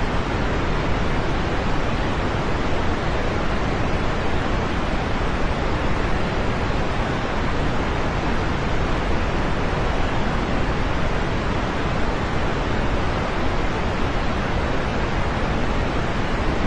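Steady rain, an even hiss with no separate drops or thunder standing out.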